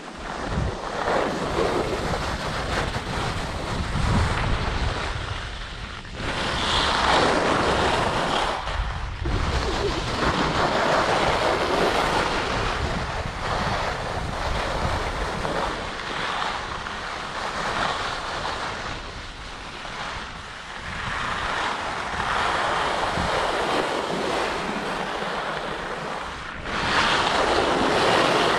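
Wind buffeting the microphone over the hiss and scrape of skis carving on packed snow, the scraping swelling and fading with each turn every few seconds.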